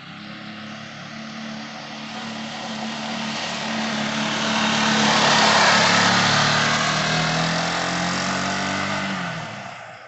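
GM Sportbike R 250 motorcycle engine running steadily under a rushing noise that builds to a peak about halfway through and then fades. The engine pitch drops slightly near the end, and the sound falls away sharply at the close.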